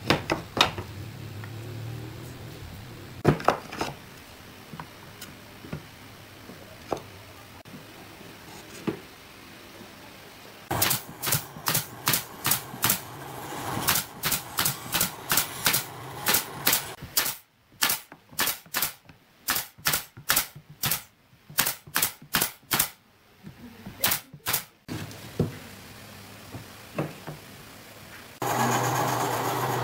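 Pneumatic nail gun driving nails into pine boards, a long run of sharp shots at about two to three a second with short pauses. A few wooden knocks come first as boards are set in place. Near the end a steady machine hum starts.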